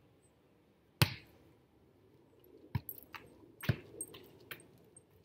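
Volleyball being struck with the hands and forearms as it is passed and set into the air: a sharp smack about a second in, another loud one near the middle, and several lighter taps between.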